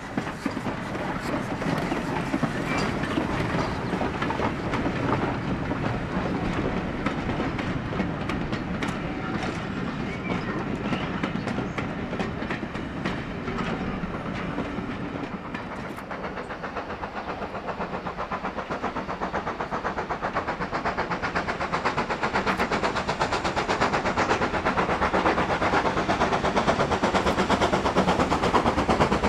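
A steam-hauled train of coaches rolling past, wheels clicking over the rail joints. About halfway through, this gives way to GWR Hall class 4-6-0 No. 4953 Pitchford Hall working hard, its rapid exhaust beats growing steadily louder as it approaches.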